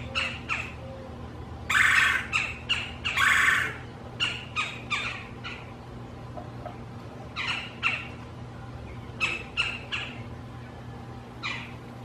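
Male red-bellied woodpecker giving harsh, rolling churr calls in short clusters, with two longer, louder calls about two and three seconds in: courtship calling at the nest box to draw a female inside.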